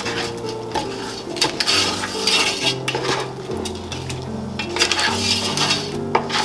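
A utensil stirring and scraping food in a frying pan, with clinks against the pan and sizzling in two longer bursts; soft background music underneath.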